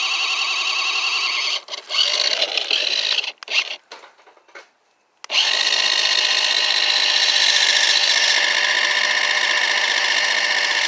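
Toy RC car's small electric motor whining at a steady pitch, cutting out for a few seconds near the middle apart from a couple of short spurts, then running steadily again.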